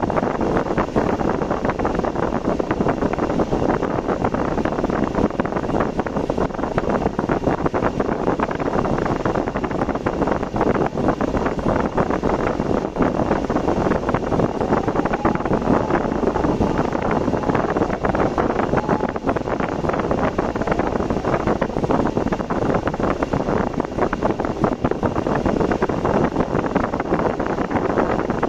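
Steady rushing noise of a car on the move: tyre roar and wind buffeting the dashcam microphone, with no clear rise or fall.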